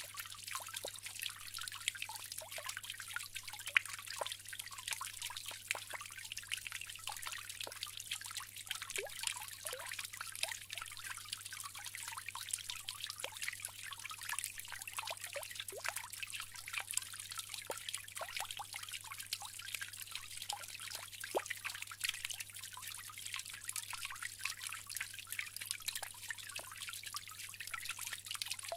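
Bamboo water fountain: water trickling and splashing steadily, a dense, irregular patter of small drips and splashes.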